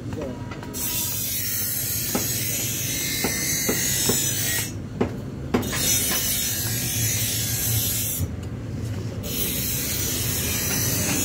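Small hatchet chopping and shaving a wooden hammer-handle blank on a log stump: a string of irregular sharp knocks over a steady hiss that cuts out briefly twice.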